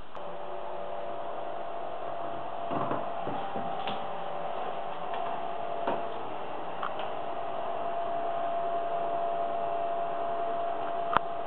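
Steady hiss with a faint, even hum and a few soft knocks, about three seconds in, six seconds in and near the end: handheld camera handling noise as the camera is carried through rooms.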